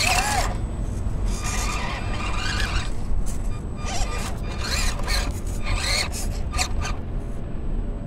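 Axial SCX24 micro RC crawler's small electric motor and gears whirring in short throttle bursts, the pitch rising and falling with each burst, over a steady low rumble.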